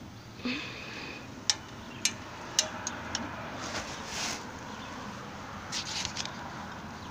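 A come-along winch and its chain being worked by hand: a handful of sharp metal clicks about half a second apart, then scuffs and rustles.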